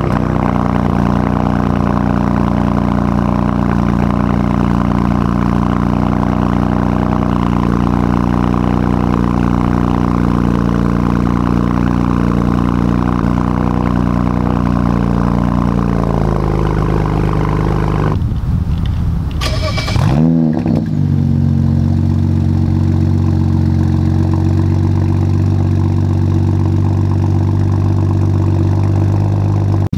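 BMW 335i's twin-turbo N54 inline-six, with its mufflers and resonators deleted, idling steadily just after a cold start; the idle speed drops a little about 16 seconds in. Around 19 seconds in the engine is started again warm, a short crank and a rev flare as it catches, then it settles into a lower steady idle.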